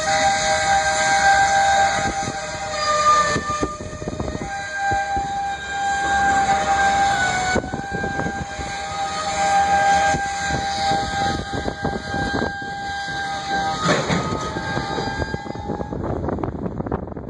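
Covered hopper cars of a slow freight train rolling past, their wheels squealing against the rails in long, high-pitched tones that shift and overlap, over a steady clatter of wheels clicking across rail joints. A sharp clank comes about 14 s in, and the squeal dies away near the end, leaving the clatter.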